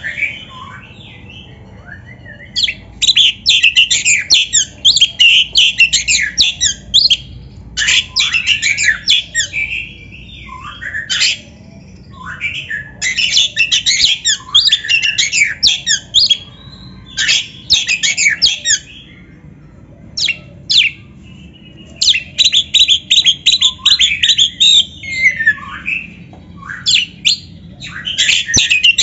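Oriental magpie-robin (kacer) in full, vigorous song. It sings rapid runs of high notes in bursts a few seconds long, with short pauses and lower slurred whistles between them.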